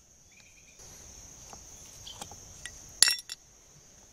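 Small metal clicks and a sharp, ringing metallic clink about three seconds in, as the propeller is worked off the shaft of an old Phantom Bantam trolling motor. Crickets chirp steadily in the background.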